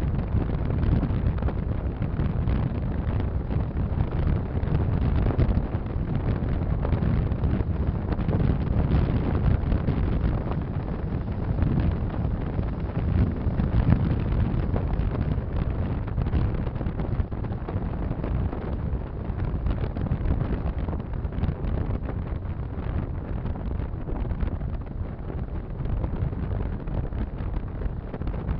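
Strong wind buffeting the microphone: a steady, dense low rumble that swells and eases a little, with no clear engine note.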